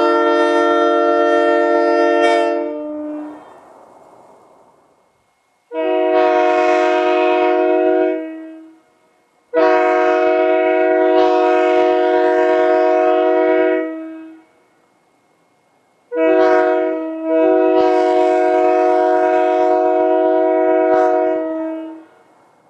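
Prime 990 locomotive air horn blowing in separate long blasts. A blast already sounding dies away about three seconds in, then three more follow; the last is the longest and falters briefly just after it starts.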